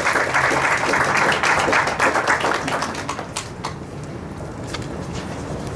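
Audience applauding, the clapping full for the first two or three seconds, then dying away to a few scattered claps.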